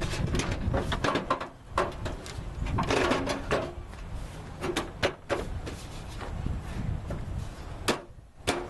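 Body panel being handled and fitted back into place on a 1998 Ford Explorer: a run of irregular knocks, clicks and scraping, with a low rumble underneath.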